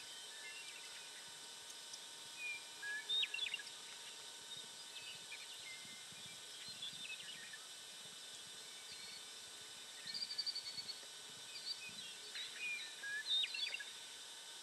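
Small birds chirping in short bursts, a cluster about three seconds in and another from about ten to thirteen seconds, over a steady outdoor hiss.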